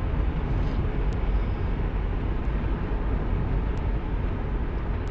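Steady rumble of a car driving along a highway: even road and wind noise, heaviest in the low end, with no change in pace.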